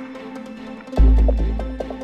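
Electronic background music: sustained chords with a deep bass hit about a second in that dies away, and short repeated notes over it.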